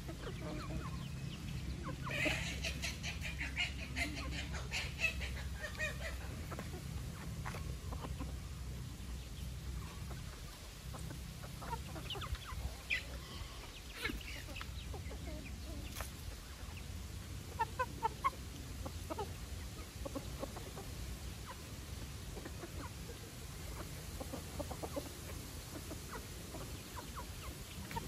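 Chickens clucking and giving short calls while feeding, busiest a couple of seconds in, over a steady low hum. A few sharp clicks come a little past the middle.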